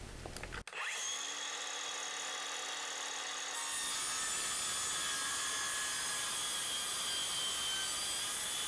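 Cordless circular saw starting up about a second in and running steadily as its blade is slowly plunged down into plywood. It gets louder about three and a half seconds in as the blade sinks into the wood.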